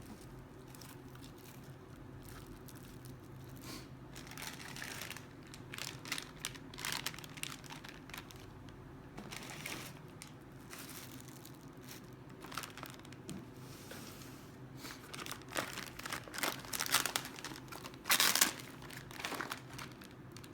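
Packaging crinkling and rustling in irregular bursts as a boxed car-parts kit is unpacked by hand, growing busier and loudest in the last few seconds.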